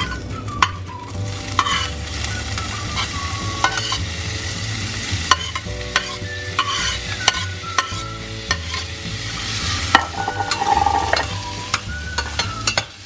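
Diced onion sizzling as it is scraped off a plate into a hot stainless pan of melted butter and oil and stirred with a metal spatula. A steady sizzle runs under many sharp clicks and scrapes of the spatula against the plate and pan.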